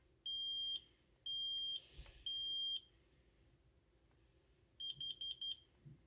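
Kidde combination smoke and carbon monoxide alarm on self-test: its piezo horn sounds three long beeps, the temporal-three smoke signal, then after a pause four short quick beeps, the temporal-four carbon monoxide signal.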